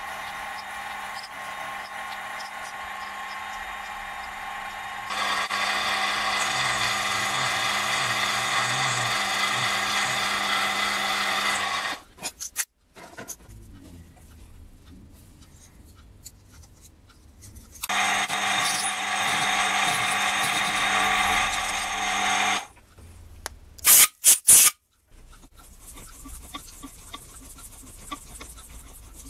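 Small milling machine running with a steady whine as it cuts and drills a brass steam-engine cylinder. It gets louder and quieter as cuts start and stop, with a quick run of loud sharp knocks a few seconds before the end.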